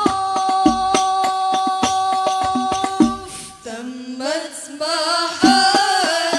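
Women's group singing banjari-style sholawat in unison: a long held note over quick hand-drum beats, then about three seconds in the drums drop out and the voices sing a wavering melody alone, with the drumming coming back near the end.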